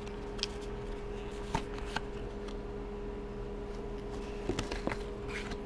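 A stack of Magic: The Gathering trading cards handled and squared in the hands, then set down, making a few soft clicks and taps against a steady background hum.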